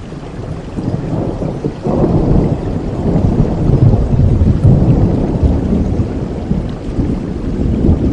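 Rain falling steadily, with thunder rumbling: the low rumble swells about two seconds in and rolls on loudest through the middle.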